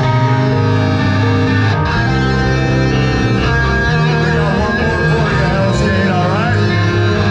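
Heavy rock band playing live: distorted electric guitars over bass guitar, with a guitar note bending upward about six seconds in.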